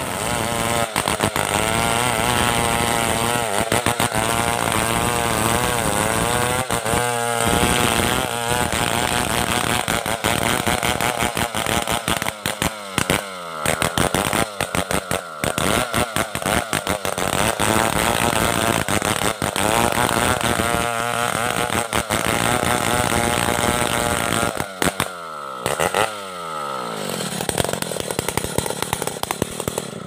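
Stihl 070 two-stroke chainsaw running at high revs, ripping a log lengthwise into planks, its pitch wavering under load. Near the end the engine note falls away.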